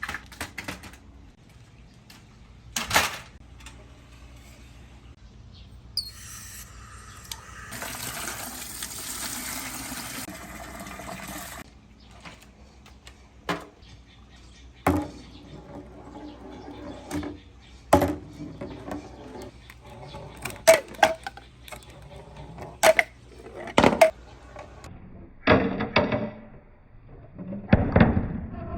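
Dragon Ball toy balls rolling down a marble run of rain-gutter ramps and dropping onto bamboo: a series of sharp knocks a few seconds apart, coming closer together near the end. About six seconds in there is a five-second stretch of steady rushing noise, like water running down the gutters.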